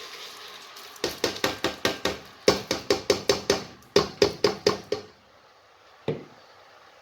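A rapid series of sharp knocks, about four to five a second in three runs, then a single knock near the end.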